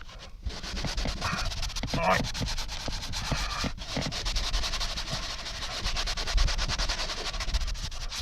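A cloth rubbing quickly back and forth over a car's interior surface, wiping off degreaser before cable clips are stuck on.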